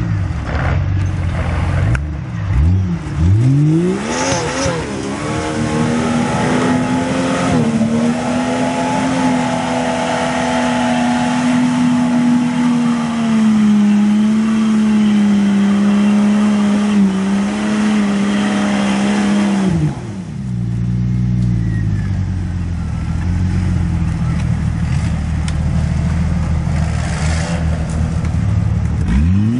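Jeep Cherokee XJ 4x4's engine revving hard as it spins its tyres through mud and up a bank: the revs climb in a couple of sweeps in the first few seconds, are held high and steady for about fifteen seconds, drop off sharply about two-thirds through, then climb again at the very end.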